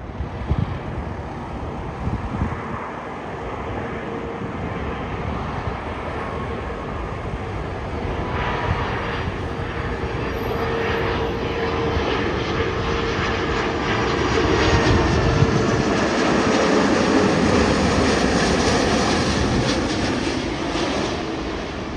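Airbus A330 twin-jet airliner on final approach, its engines giving a steady rush with a held whine. The sound grows louder as it comes over and eases slightly near the end.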